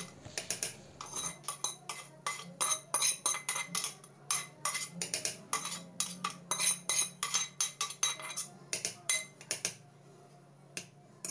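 Metal spoon clinking and scraping against a metal pan as fried tadka is scraped out of it into a pot of saag: a quick, uneven run of ringing clinks, several a second, that stops about ten seconds in. Two more clinks follow near the end.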